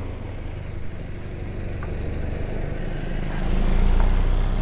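Low engine rumble from a passing vehicle, growing louder about three and a half seconds in and easing again near the end.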